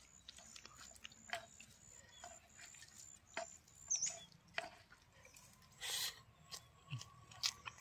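Faint, scattered soft clicks and wet squelches of fingers mixing rice and curry by hand in a wooden bowl, then a short burst of mouth sounds as a handful is eaten about six seconds in.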